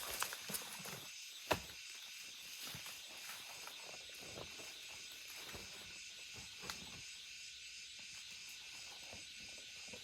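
Forest ambience: a steady, high insect chirring, with a few sharp clicks or snaps, one about a second and a half in and another near seven seconds.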